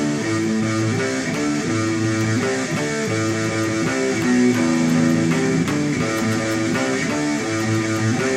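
Guitar playing a power-chord riff, chords sliding between low frets and ringing on without a break, changing about once a second.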